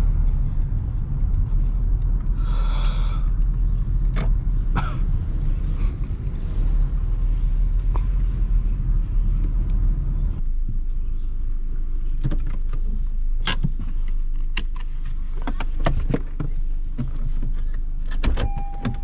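A car driving, heard from inside the cabin: a steady low road and engine rumble, with scattered clicks and knocks from the interior. The rumble eases about halfway through as the car slows. A short steady beep sounds near the end.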